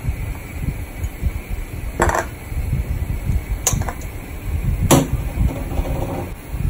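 Three short, sharp knocks of kitchen bowls being handled, about a second or two apart, the last one loudest, over an unsteady low rumble.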